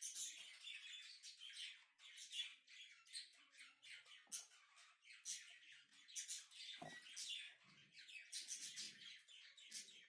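Birds chirping in the background: many quick, faint high chirps, overlapping and nearly continuous.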